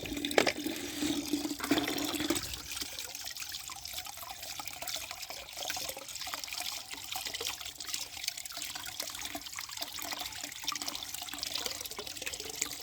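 Running water hissing and splashing steadily as muddy plastic toy vehicles are rinsed under it. A low steady hum underneath stops about two seconds in.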